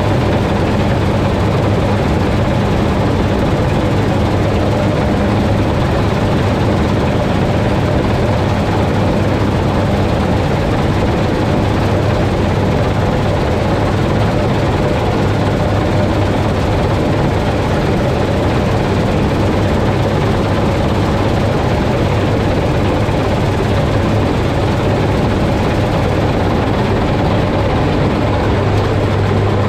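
Combine harvester running at steady working speed while combining winter wheat: a constant, even engine and machinery drone with a low hum.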